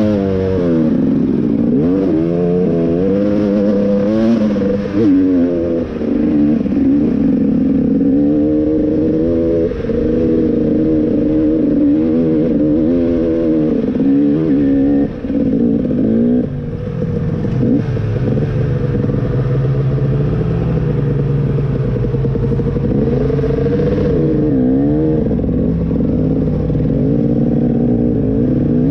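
2018 KTM 250 XC two-stroke dirt bike engine being ridden along a trail, its pitch rising and falling over and over with the throttle, with a few brief drops where the throttle is cut.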